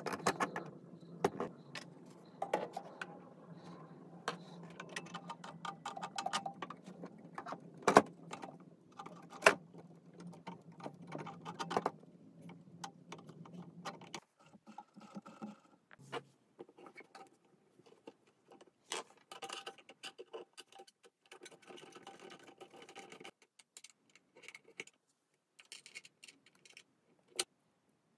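Handling clicks and taps of 3D-printed plastic parts, tyres and metal axles being fitted together by hand, irregular and scattered. A steady low hum runs under the first half and stops about halfway through.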